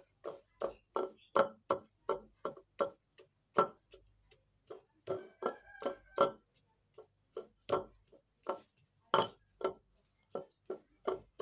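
Stone pestle (ulekan) pounding tempeh in a stone mortar (cobek): sharp, slightly ringing knocks of stone on stone, about three a second, grinding the tempeh down to a paste, with two brief pauses between runs of strokes.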